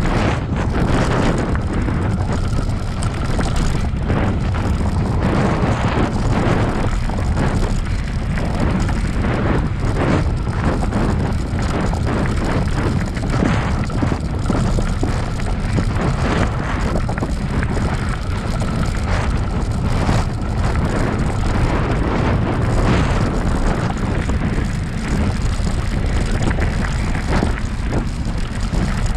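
Wind buffeting the microphone over the steady rolling of a bicycle's tyres on a dirt trail, with frequent small knocks and rattles from bumps.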